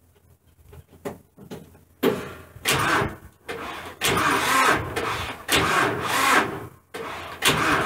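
A 45-horsepower John Deere tractor's starter cranking the engine in uneven surges without it catching: a sluggish crank on a dead battery. Faint clicks come first, and the cranking begins about two seconds in.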